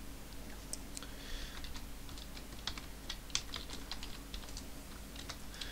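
Computer keyboard being typed on: irregular runs of short key clicks, sparse at first and denser in the second half, over a steady low hum.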